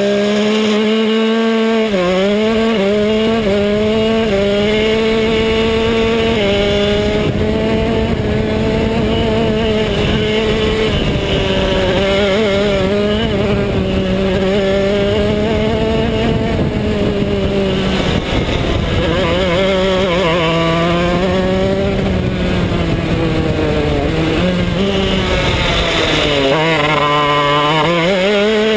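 125cc two-stroke shifter kart engine running hard at high revs, heard from on board. Its pitch wavers, dipping and climbing back as the kart slows and accelerates, with the deepest dip and climb near the end.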